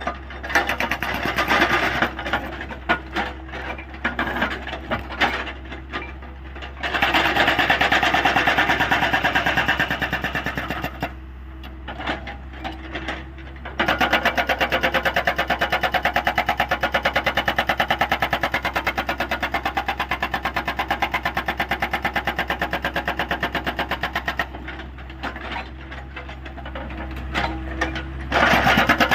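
Hydraulic rock breaker on a Hyundai 85A excavator hammering in fast, even blows. It runs in long bursts with short pauses and scattered knocks between, over the steady hum of the excavator's diesel engine.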